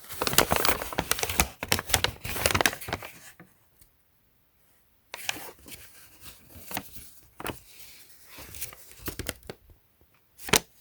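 Packaging crinkling and rustling as it is handled: dense crackling for about three seconds, a brief silence, then scattered lighter rustles and clicks.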